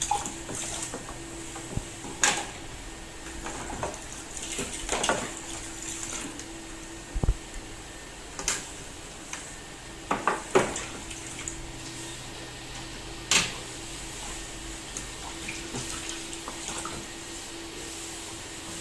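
Plastic feeding-bottle parts being rinsed under water, with a handful of sharp clatters as the parts knock against each other and are set down in a tray.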